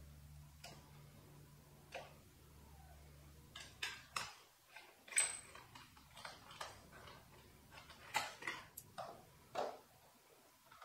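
Irregular sharp clicks and taps of hand tools working the bolts and plastic push pins of a motorcycle's fairing, over a low hum that stops about four seconds in.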